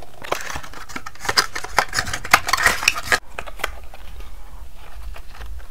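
Corrugated cardboard box being handled and its flaps opened: a quick run of crisp scrapes and taps for about three seconds, then quieter rustling.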